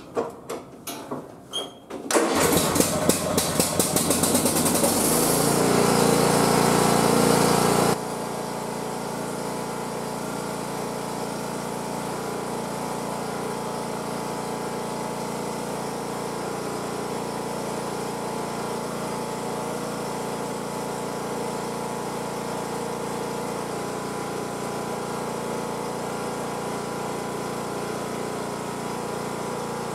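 Cub Cadet XT1 riding mower's engine cranked on its electric starter for a few seconds, catching and speeding up, then dropping abruptly to a steady, quieter run about eight seconds in.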